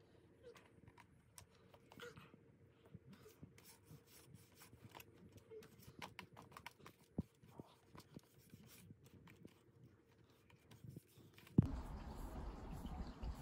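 Faint small clicks and rustles of fingers picking fibres and a sucked-in wet wipe out of a cordless stick vacuum's brush roll. Near the end a bump, then a louder steady hiss.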